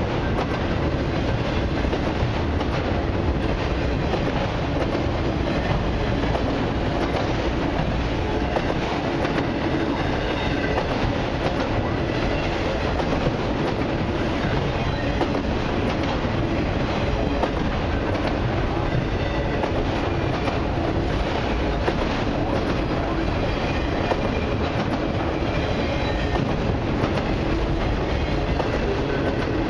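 Long freight train of autorack cars rolling steadily past: a continuous rumble of steel wheels on rail with a running clickety-clack as the wheels go by.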